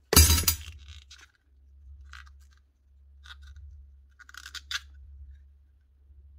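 Tools and small parts handled on a workbench while a saw's new power lead is fitted into its clamp: one loud clatter at the start, then scattered small clicks and scrapes. A steady low hum runs underneath.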